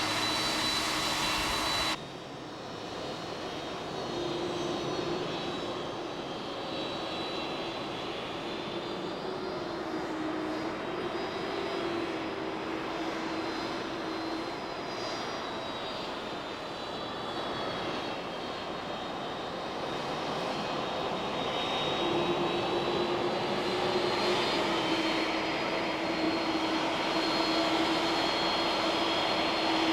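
Boeing 767-300ER's jet engines running steadily, a high whine over a lower hum that shifts a little in pitch. The sound changes abruptly about two seconds in, becoming briefly quieter, then builds slowly.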